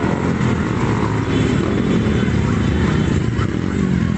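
A stream of small motorcycle and scooter engines running steadily as the riders pass close by.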